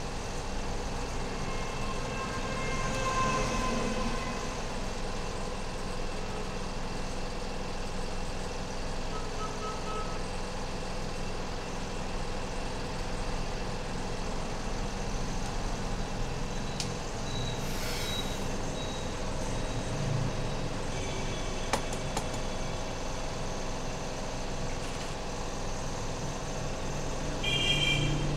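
Steady background noise of road traffic, with a short higher-pitched tone near the end.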